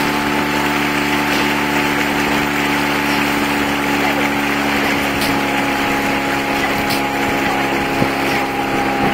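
Outboard motor of a coaching launch running at a steady pace alongside a rowing crew, a constant even drone with no change in pitch.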